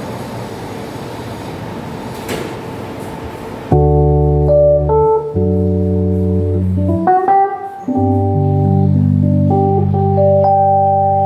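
Yamaha CK61 stage keyboard playing sustained organ chords that hold without fading and change every second or so, with a brief upward slide in the middle. For the first few seconds before the chords come in there is a steady rushing noise.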